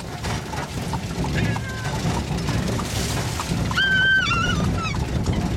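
Horse-drawn carriage on the move: a steady rumble and rattle of the carriage with the clatter of hooves, and a child's high-pitched voice calling out briefly twice, the longer call about four seconds in.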